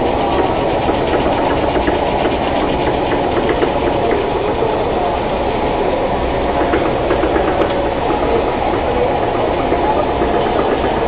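Snack-food production-line machinery running steadily: a dough-sheeting roller machine and conveyor, giving a loud, even mechanical running noise.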